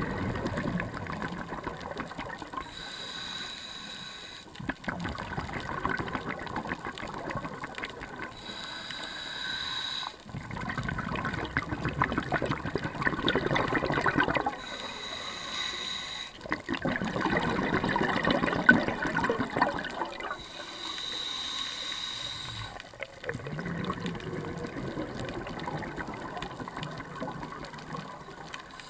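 Scuba diver breathing through a regulator, heard underwater: a hissing inhale about every six seconds, each followed by a longer rush of bubbling exhaust bubbles.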